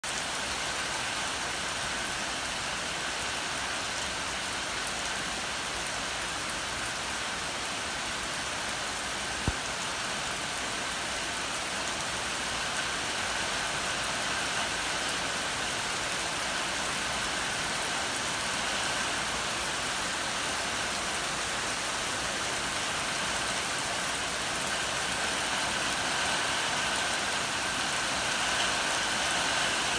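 Steady rain falling, an even hiss of drops that holds constant throughout. A single sharp tick stands out about nine and a half seconds in.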